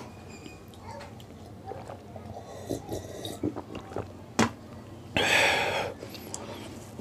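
Eating mouth sounds: soft chewing and small wet clicks, a sharp clink a little over four seconds in as a drinking glass is set down on the tray, then a loud breathy exhale lasting about a second.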